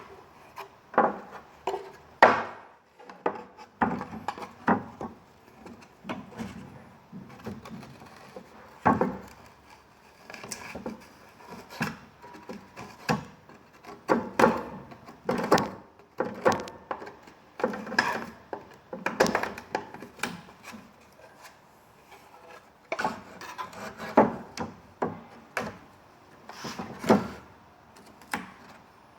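Irregular knocks and scraping of wood, about one knock a second, from repair work on a chair.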